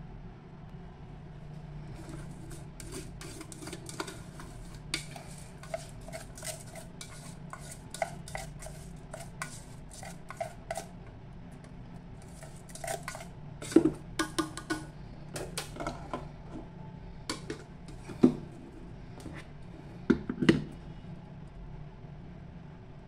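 Clinks, scrapes and knocks of an electric meat grinder's bowl, blade and lid being handled, with chopped greens stirred in the bowl with a wooden skewer. A run of quick small clicks comes in the first half, then a few louder knocks near the middle and toward the end.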